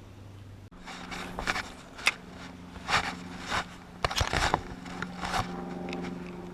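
A series of short scraping, crackling noises, about six of them over a few seconds, over a faint steady hum.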